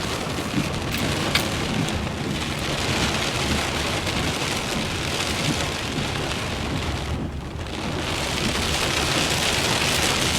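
Heavy rain falling steadily on a vehicle, a dense hiss with a low rumble underneath; the high part of the hiss briefly drops away about seven seconds in.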